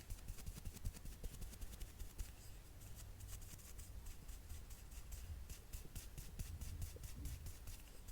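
Dense, irregular light clicks and scratchy taps of small art tools being handled close to the microphone, over a low steady hum.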